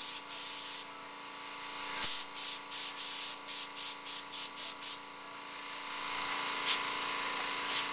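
Airbrush spraying in short hissing bursts as the trigger is pressed and released, several a second, laying fine white highlights on painted rivets. A faint steady hum runs underneath.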